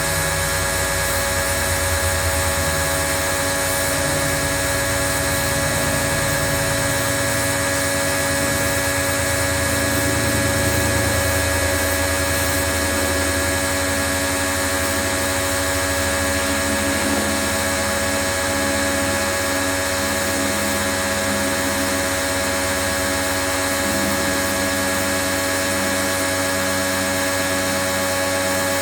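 Pro-Kleen 1600 pressure washer running steadily, its motor and pump giving a constant whine. A low pulsing rumble underneath eases off about halfway through.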